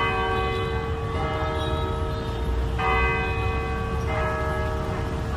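Cathedral church bells tolling: four strokes in about four seconds, alternating between two bells of different pitch, each left ringing into the next. A low background rumble runs beneath.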